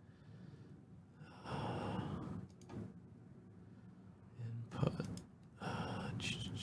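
A person breathing out heavily three times, soft sighs of a second or so each, with a light click about five seconds in.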